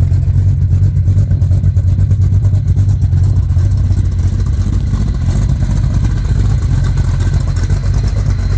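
Small-block Chevy V8 idling steadily through glasspack mufflers bolted straight to the headers, giving a loud, fast, even exhaust pulse. The carburettor has not yet been fully tuned for idle.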